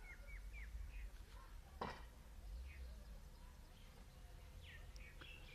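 Faint chirps of small birds: a quick run of short repeated chirps at the start, then scattered single calls. A single sharp click comes about two seconds in, over a low steady rumble.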